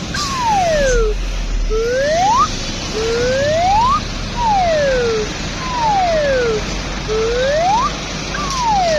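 An electronic siren-like tone sweeping up and down in pitch, one glide roughly every second, over a steady low rumble.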